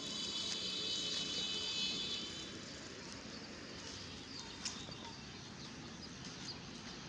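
Rural outdoor background with a high, buzzy call lasting about two and a half seconds, likely a bird or insect, over a faint steady hiss. There is a single light click a little after the middle.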